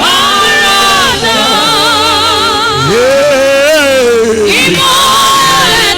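Gospel worship music with singing: long held, wavering sung notes over musical accompaniment.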